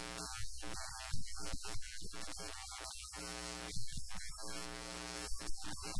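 Electrical mains hum: a steady buzz with many overtones, broken by frequent short, irregular dropouts, over a constant high hiss.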